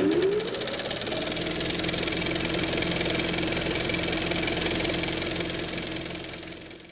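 A motor-driven machine spins up with a rising whine in the first second, then runs steadily with a hum and a fine rapid clatter, fading out near the end.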